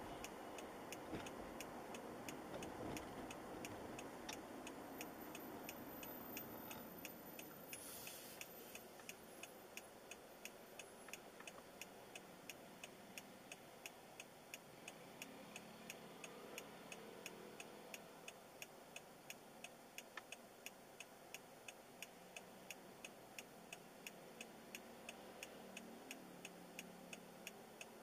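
A car's turn-signal indicator ticking steadily, about two clicks a second, inside the cabin, over faint road noise that dies away as the car comes to a stop.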